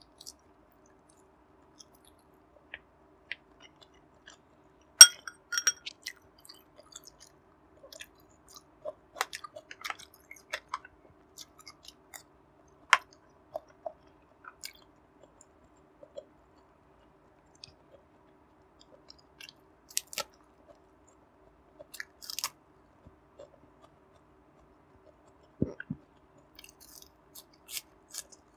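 Close-miked chewing and biting of barbecued pork belly: irregular sharp mouth clicks and smacks, the loudest about five seconds in.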